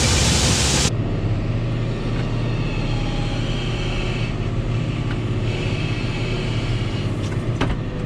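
A loud rushing noise at a grain auger hopper taking corn from a semi trailer, cut off abruptly about a second in. Then a John Deere tractor's diesel engine running steadily, heard from inside the cab as the loader works corn, with a couple of sharp clicks near the end.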